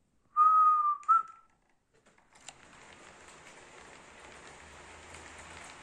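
Two whistled notes, a long one falling slightly and a short rising one, then a click and an HO-scale model train starting to roll on the track: a steady running noise of wheels and motor that slowly grows louder.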